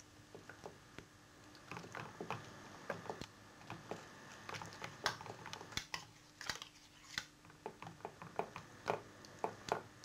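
Hands massaging a wet marinade into raw chicken breast: faint, irregular squishing with small sticky clicks.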